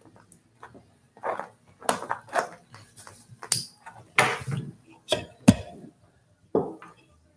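Irregular knocks, clicks and scrapes of makeup items and the recording device being handled at close range. The loudest is a sharp knock about five and a half seconds in.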